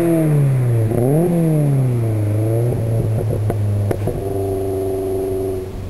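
Subaru Impreza GC8's flat-four engine, breathing through equal-length exhaust headers and a Presto WR silencer, dropping in revs, blipped once about a second in, then settling to a steady idle. Two sharp clicks come just before it settles.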